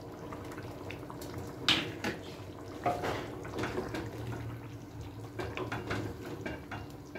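Rice and chicken pulao bubbling at the boil in a pan, with chopped capsicum tipped in and stirred with a wooden spatula. There is a steady hiss of boiling, a few knocks (the sharpest just under two seconds in) and soft ticking and scraping from the stirring.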